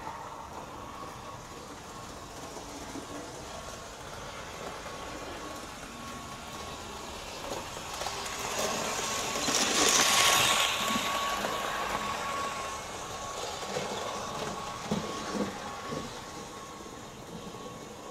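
Märklin H0 model electric locomotive (ÖBB 1118, Märklin 3369), fitted with a high-performance motor and ball bearings, running without a train on Märklin M-track: its motor and wheel noise grows as it approaches, is loudest as it passes close about ten seconds in, then fades away.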